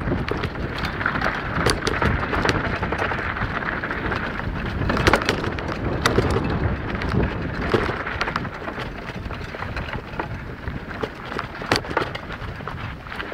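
Mountain bike rolling fast down a stony dirt singletrack: tyres crunching over gravel and rock, with the frame and camera mount rattling and knocking over the bumps.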